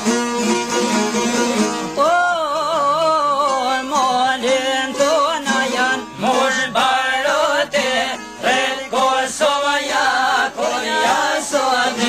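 Albanian folk music: a plucked string instrument plays alone at first, and from about two seconds in a wavering, heavily ornamented melody line joins it.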